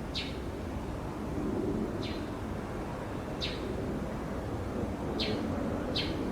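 A bird calling repeatedly: short, high, falling chirps about every one and a half seconds, over a steady low background hum.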